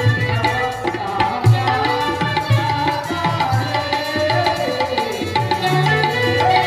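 Kannada stage-drama music: tabla drumming a steady beat under a continuous melody line.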